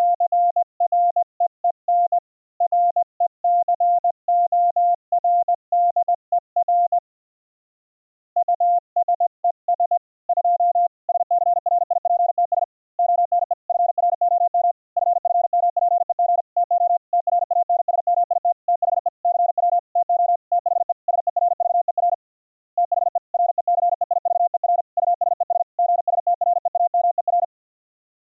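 Morse code: a single steady tone of about 700 Hz keyed rapidly on and off in dots and dashes, pausing for about a second and a half a third of the way in and stopping shortly before the end.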